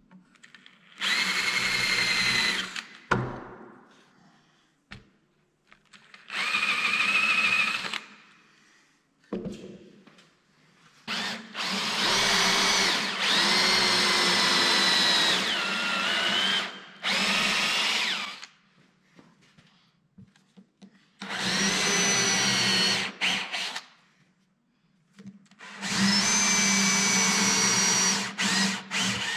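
Cordless drill boring into a thick alder slab in six short runs, its motor whining under load and stopping between holes. In the longest run, a little before the middle, the whine dips in pitch and then recovers.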